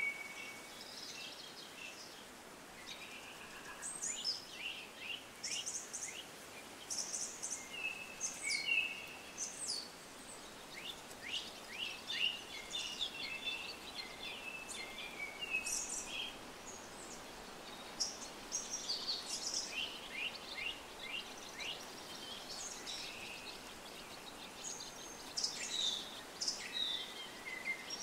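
Many small birds chirping and calling, short quick notes overlapping in bursts, over a steady faint background hiss.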